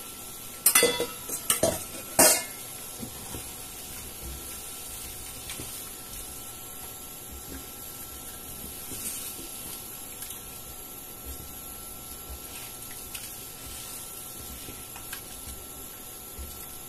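Stainless steel bowl clattering against a pan several times in the first two seconds or so as tofu and black fungus are tipped into boiling stock. After that, a spatula stirring the pieces in the pan, with light scraping and the stock bubbling.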